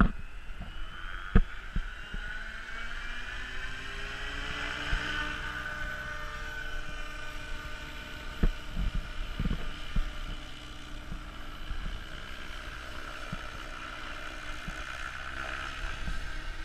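KDS Agile 7.2 radio-controlled helicopter spooling up: the rotor and drive whine rises in pitch over the first few seconds, then holds steady as the helicopter lifts off and flies. A few low thumps of wind hit the microphone.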